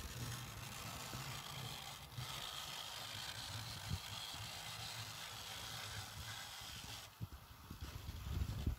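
A 1:87-scale model train running along the layout's track, a steady hiss and low rumble with small wheel clicks. About seven seconds in the steady sound drops away, leaving scattered clicks.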